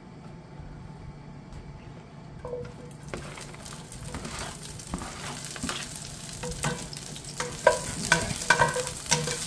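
Broccoli florets dropping into hot oil in a sauté pan and starting to sizzle about three seconds in. A slotted spatula scrapes and taps against the pan as the florets are pushed off a cutting board and stirred.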